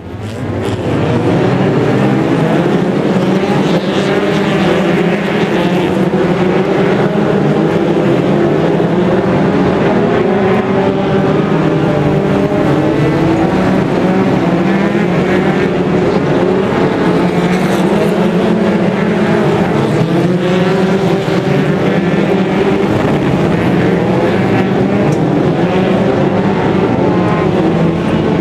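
A pack of winged oval-racing stock car engines running together at race speed, a dense, steady, loud engine noise made of many overlapping pitches that waver up and down as the cars speed up and lift off.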